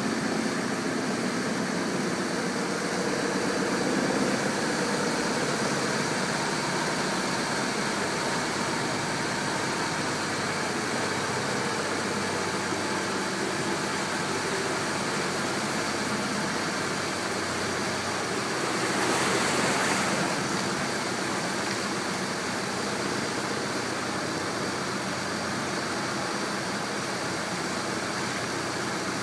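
Water taxi's motorboat engine running steadily under way, mixed with the rush of its churned wake water. About two-thirds of the way through there is a brief louder rush of noise.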